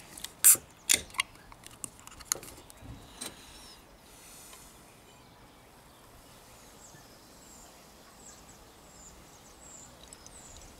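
Ring-pull of a 500 ml beer can cracked open with a sharp click about half a second in, followed by a few lighter clicks and knocks as the can is handled. Then lager is poured quietly from the can into a glass, with birds chirping faintly.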